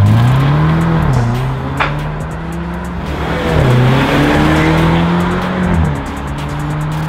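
Mercedes-Benz E300's turbocharged four-cylinder engine through an ARMYTRIX valvetronic cat-back exhaust, accelerating hard through the gears. The engine note rises, then dips sharply at three upshifts about 1, 3.5 and 6 seconds in.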